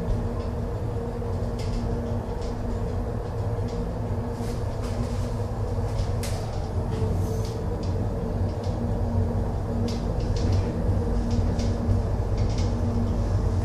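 Cabin of an inclined funicular running along its steel rail track: a steady mechanical hum and rumble, with scattered light clicks and rattles.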